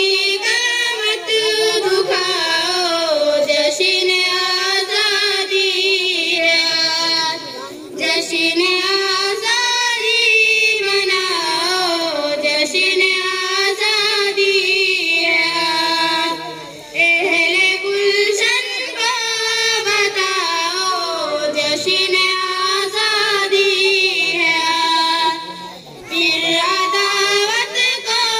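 Two girls singing an Urdu patriotic tarana together into microphones, in long held melodic phrases with short breaks about every eight or nine seconds.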